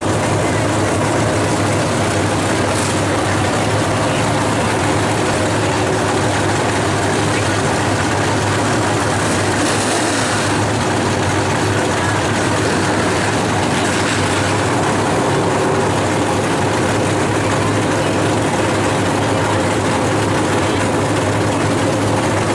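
A pack of IMCA Northern SportMod dirt-track race cars with V8 engines running around the oval together, a steady, continuous engine noise.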